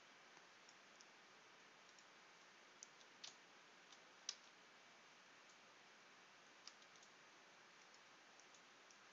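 Faint, scattered clicks of a computer keyboard and mouse over a low steady hiss: a handful of separate clicks, the loudest about four seconds in.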